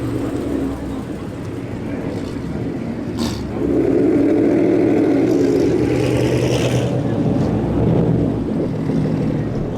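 Car engine running close by, getting louder about three and a half seconds in and staying loud for a few seconds before easing off.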